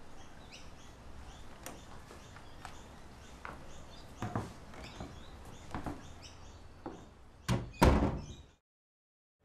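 A front door pushed shut, ending in two loud knocks a little under half a second apart about seven and a half seconds in as it closes and latches. Birds chirp throughout, with a few small clicks before the door shuts.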